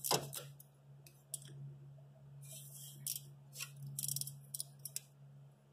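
Irregular light metallic clicks and scrapes as the small nut that holds the wire is worked onto the terminal of a new glow plug on an LML Duramax diesel, over a steady low hum.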